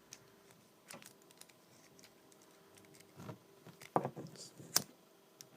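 A key ring being handled: a few scattered light clicks and taps of keys, a split ring, a small pocket knife and a lighter knocking together, the loudest near the end.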